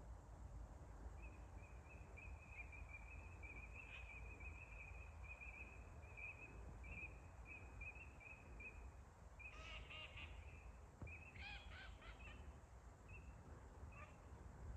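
Faint birds calling: a long, even run of rapid high chirps at one pitch, then a few louder calls with overtones about ten seconds in, over a low steady rumble.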